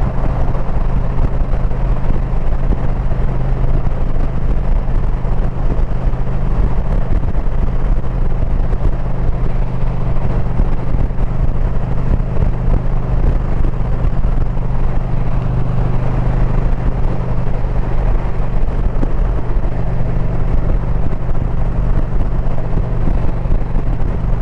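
2022 Indian Pursuit's V-twin engine running steadily at cruising speed, under heavy wind rush over the microphone.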